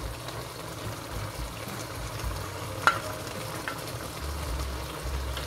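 Broccoli florets being spooned from a glass dish into a pan of simmering tomato sauce, over a steady sizzle, with one sharp tap of the spoon about three seconds in.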